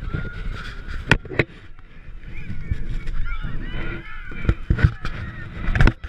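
Handling noise from an action camera: fingers knocking and rubbing on the GoPro's housing, with several sharp knocks. Many overlapping wavering high calls sound in the background, loudest through the middle.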